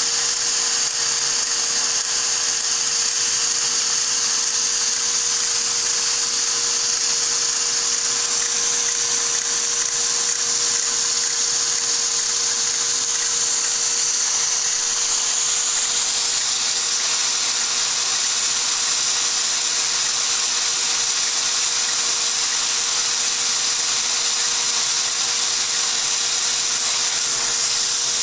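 Steady high whir of a small electric motor turning a Lego model steam engine's crank, connecting rod and valve gear, with a constant hum under it; the whir eases slightly about halfway through.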